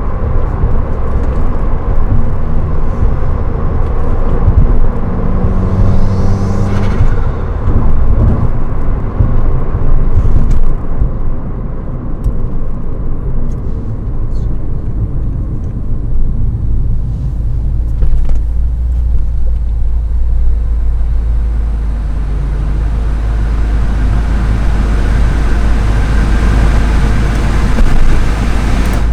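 Subaru WRX's turbocharged 2.0-litre flat-four running under way through an aftermarket Invidia Q300 cat-back exhaust, a deep steady rumble. The revs rise and fall in the first half, then settle into a steadier cruise.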